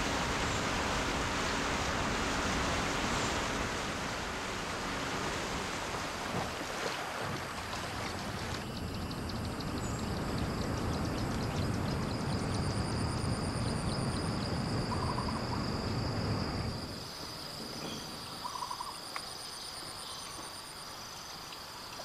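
Boat underway on calm water: a steady rushing of water and motor noise. Steady high insect buzzing comes in partway through. About 17 seconds in the rushing drops away, leaving quieter shore ambience of insects with a few short chirps.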